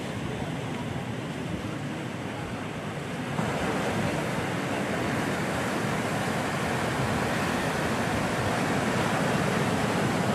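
Sea surf breaking and washing over a rocky shore: a steady rush of water that grows louder about three and a half seconds in.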